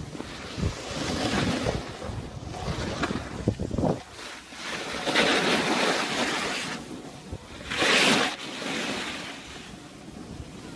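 Wind rushing and buffeting over a phone's microphone while skiing downhill, surging louder about five seconds in and again around eight seconds.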